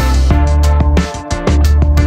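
Upbeat background music with a steady beat and a deep bass line.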